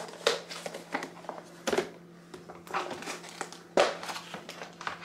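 A thin plastic food container and its lid being handled: irregular crinkling and clicking of the plastic, with two sharper clicks near the middle and later on, over a faint steady low hum.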